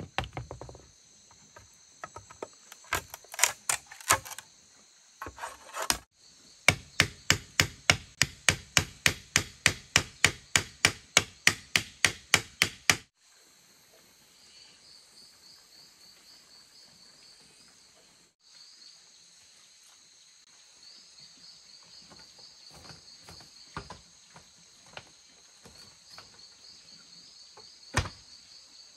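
A tool striking bamboo: irregular knocks at first, then a fast, even run of about three strikes a second that stops suddenly about halfway through. After that, insects chirp steadily, with a few light taps and one sharp knock near the end.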